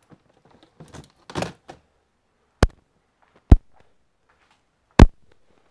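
Brief rustling of handling, then three sharp knocks about a second apart, the later two the loudest.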